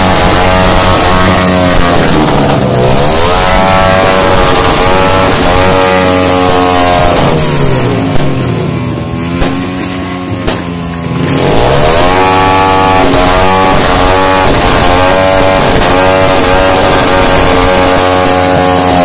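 Motorcycle engines revved over and over, the pitch climbing and falling every second or two over a steady idle. The revving eases briefly around the middle, where a few sharp pops stand out.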